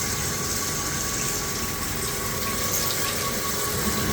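Coolant gushing steadily from the flexible coolant lines inside a Mori Seiki CNC machining center while the machine runs, with a steady high tone over the even rush.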